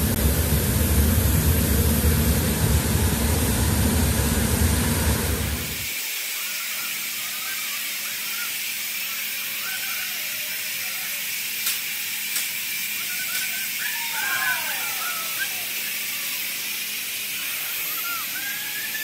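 Forge furnace burner roaring with a loud low rumble that cuts off suddenly about six seconds in. A steady hiss continues after it, with men calling out briefly a few times later on.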